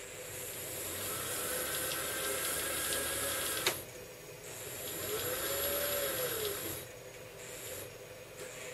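Small DC drive motor of a home-built RC car spinning its raised wheels under PWM speed control from an ATmega8 and L293D driver, with a high, steady PWM whine over the motor's whir. It runs twice: the first run ends in a sharp click about three and a half seconds in, and during the second the motor's pitch rises and then falls.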